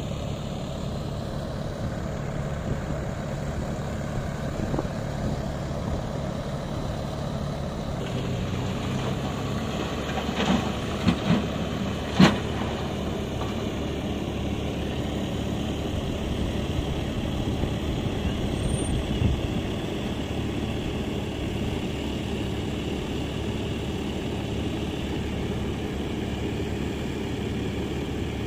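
Isuzu dump truck's diesel engine running steadily as its hydraulic hoist tips the loaded bed; the engine note changes about eight seconds in. A few loud knocks follow between about ten and twelve seconds in as the load of stone starts sliding out of the tipped bed.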